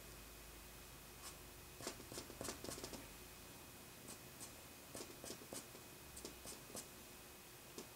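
Faint scratching of a drawing pencil on paper: quick short strokes in small groups with pauses between, as hair is drawn into a portrait.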